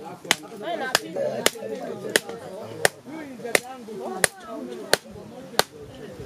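A hand-held knife blade chopping in steady, repeated blows: about ten sharp knocks, roughly one every two-thirds of a second. Voices talk in the background.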